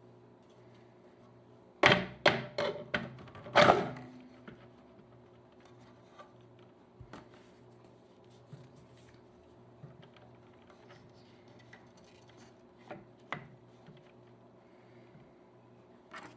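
Turntable parts being handled and set down during reassembly: a cluster of sharp knocks and clatter about two seconds in, then a couple of faint taps later, over a low steady hum.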